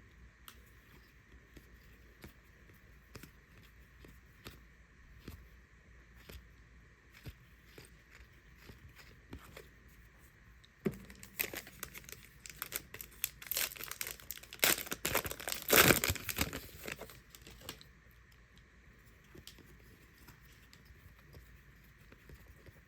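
Trading card packs being handled: faint ticks and slides of cards for the first half, then about halfway through the wrappers are crinkled and torn open for several seconds, loudest a little past the middle of that stretch.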